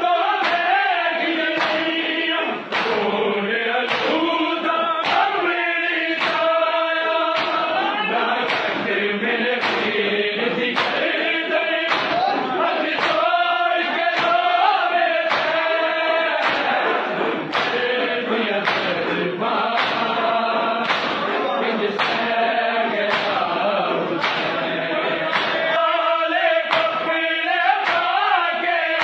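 Men's voices chanting a noha (Shia mourning lament) together, with the rhythmic slaps of hands striking bare chests in unison (matam) keeping a steady beat a little faster than once a second.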